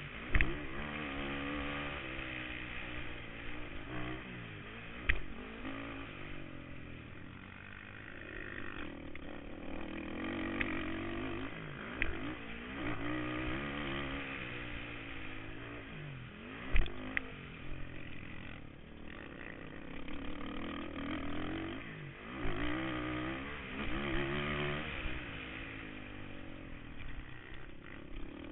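Kawasaki KFX 450R quad's single-cylinder four-stroke engine racing, its pitch rising and falling over and over as the rider accelerates and backs off. Heard from a camera mounted on the quad, with a few sharp knocks from the machine, the loudest about 17 seconds in.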